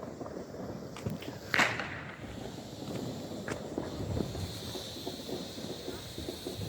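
Footsteps of a person walking outdoors, irregular and low, with one sharp bang about a second and a half in.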